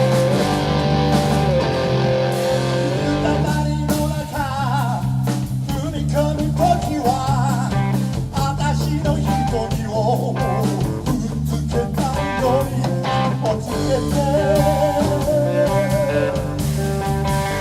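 A live rock band playing a slow, bluesy piece: held bass notes and drums under an electric guitar, with a lead line that bends and wavers with vibrato about four seconds in and again near the end.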